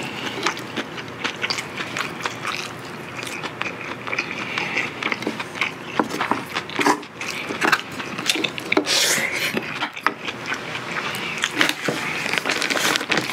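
Close-miked chewing: wet smacking and clicking mouth sounds of a man eating with his mouth full.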